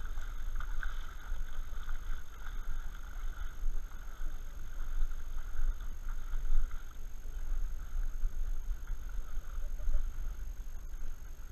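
Muffled rumble of lake water sloshing and wind buffeting a camera strapped to the back of a Bernese mountain dog moving through the water, with a faint steady high whine.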